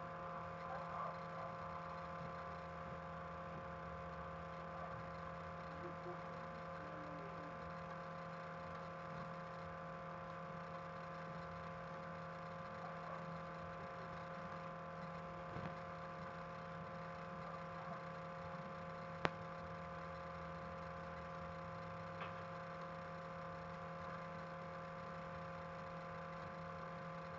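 Steady electrical hum made of several fixed tones, with a single sharp click about nineteen seconds in.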